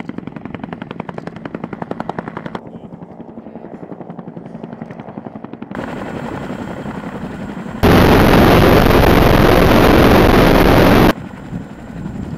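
Military helicopter rotors: a fast, even rotor thudding at first, then a CH-47 Chinook's twin rotors and engines close by as it hovers low over snow. About halfway through comes a much louder rushing stretch of about three seconds that stops abruptly.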